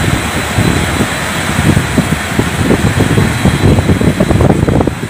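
Floodwater of a flash flood rushing in a loud, steady roar, with uneven low rumbling running through it.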